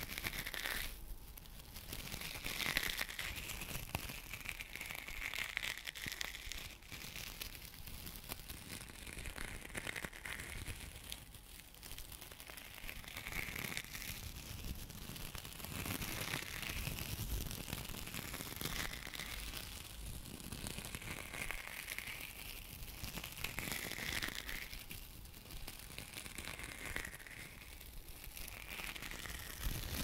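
Hands and fingers rubbing and working against each other close to a microphone: a dry skin rustle that swells and fades every couple of seconds, dotted with small ticks.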